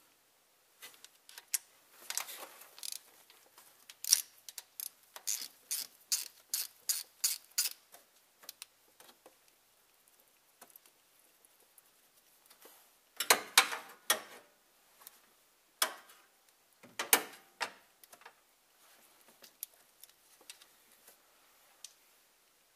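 Hand ratchet clicking in quick, even strokes, about two or three a second, as the bolts of the timing chain guides are undone. Two louder bursts of metal clatter come past the middle.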